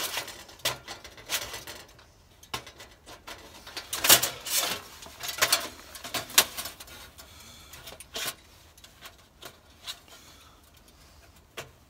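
Thin titanium panels and quick-release latches of a Winnerwell Fastfold folding stove clicking and clattering as it is unfolded and clipped together by hand. There is an irregular string of sharp clacks, the loudest about four seconds in.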